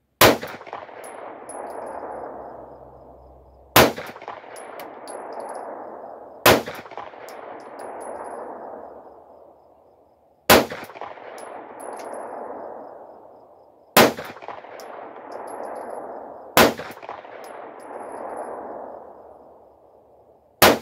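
Seven 9mm shots from a Glock 43-pattern subcompact pistol, fired slowly a few seconds apart, each report rolling away for two to three seconds before the next.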